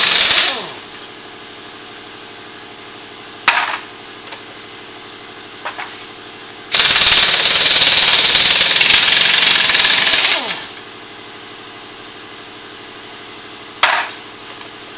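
Impact wrench hammering on the front wheel lug nuts of a truck in two bursts: one ending just after the start, the other from about seven seconds in for some four seconds. Each burst winds down with a falling whine. Between them there is a steady hum and a few sharp clicks.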